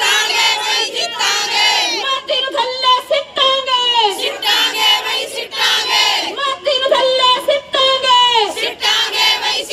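Group of women chanting a protest slogan together in a loud, sing-song call, led into a handheld microphone. The voices come in drawn-out phrases that fall in pitch at the end, repeated about every second or two.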